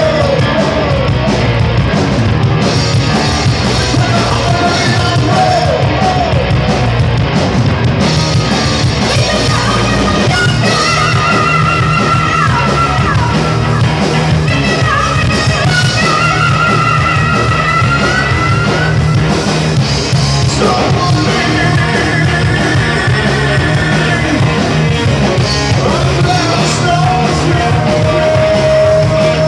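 Heavy metal band playing live: distorted electric guitars, bass and drums under a singer's high-pitched vocals, with long held, wavering notes.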